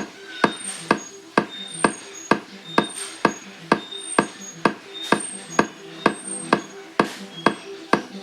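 Music playing through a Kingone K99 Bluetooth speaker. It is a sparse beat of sharp, evenly spaced clicks about twice a second, with short high blips over a steady low tone.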